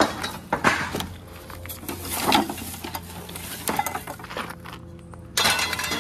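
Small pieces of scrap metal being handled in a curbside junk pile: a series of separate clanks and clinks, with a denser clatter near the end.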